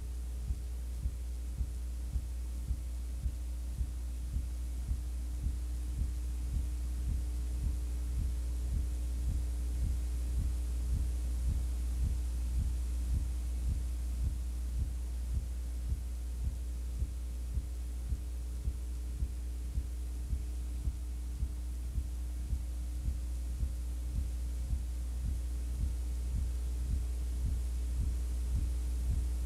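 Steady low electrical hum with a faint higher tone and a soft, evenly repeating pulse, with no game or crowd sound.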